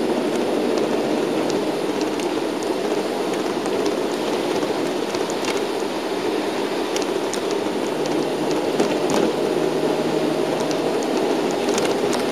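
Inside a moving shuttle bus: steady engine and road noise, with tyres on a wet road and scattered light ticks.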